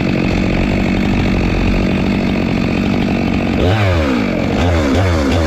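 Stihl MS 462 C two-stroke chainsaw with a 25-inch bar running at full throttle while cutting a log. About three and a half seconds in, the engine pitch dips and recovers several times in quick succession.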